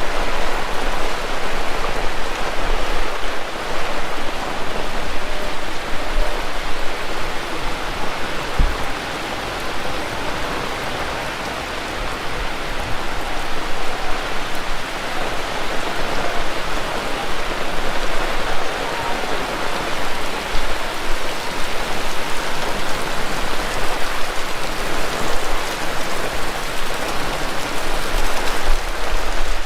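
Heavy rain falling steadily, a dense even hiss of drops on surfaces, with low wind buffeting on the microphone.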